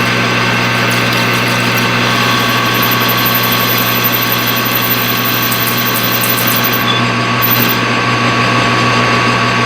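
Metal lathe running in gear at boring speed while a boring bar cuts the inside of the workpiece: a steady gear-driven hum, with a thin high whine and light ticking in the middle.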